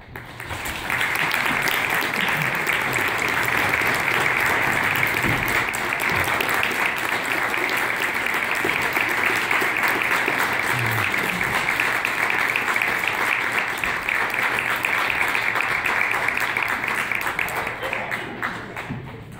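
Audience applauding, starting abruptly and holding steady before thinning out near the end.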